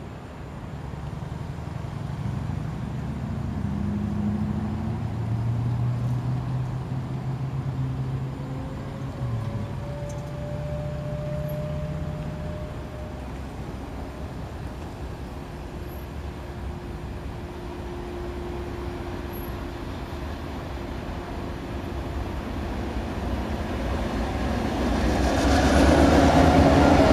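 Diesel freight locomotives approaching with a steady low engine rumble that slowly grows, then grows sharply louder near the end as the locomotives pass close and the freight cars start rolling by.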